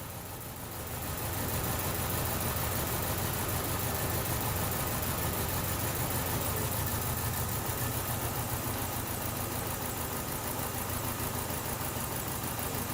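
2012 Chevrolet Cruze's four-cylinder engine idling roughly, with a misfire on cylinder number 2. It grows louder about a second in, then runs steadily.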